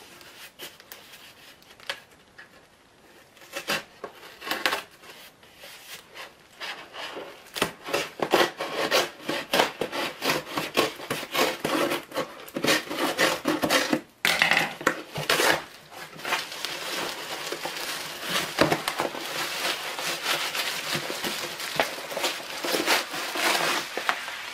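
Scissors slitting the packing tape on a cardboard shipping box: after a few quiet seconds, a long run of quick scraping, snipping strokes, turning into denser cardboard rustling and rubbing later on as the box is handled.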